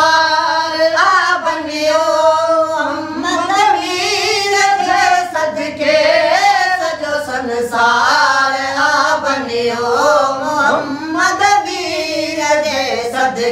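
A boy leading and two men joining in, singing a Sindhi naat in voices only, with long wavering held notes.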